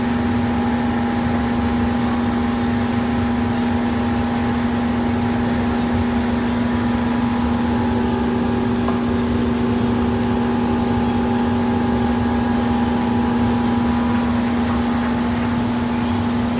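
A workshop machine running with a steady, unchanging hum and a low rumble underneath.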